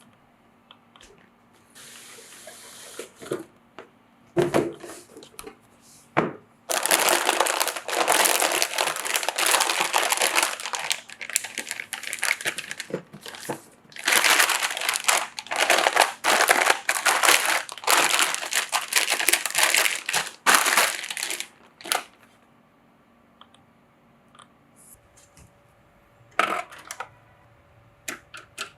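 Crinkling and crumpling of packaging material as it is handled, in two long spells of dense crackle with a pause between them. Scattered clicks and knocks fall before and after.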